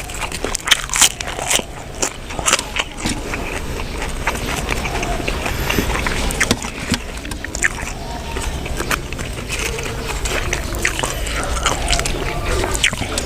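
Close-miked chewing and biting of a mouthful of buffalo-meat larb: irregular crisp crunches and wet clicks of the mouth, over a low steady hum.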